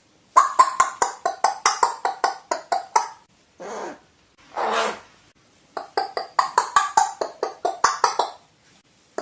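Crow making a rapid series of knocking, clicking calls, about five a second, broken in the middle by two longer single call notes before the clicking resumes.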